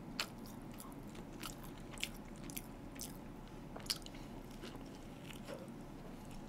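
Close-up mouth sounds of biting into and chewing a toasted sandwich: faint, scattered short crunches and clicks over a steady low room hum.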